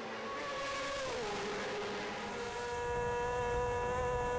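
Racing sidecar outfits' 600cc engines at high revs, one engine note falling in pitch about a second in as it passes. From about three seconds in, a sidecar engine heard from on board, running steadily at high revs.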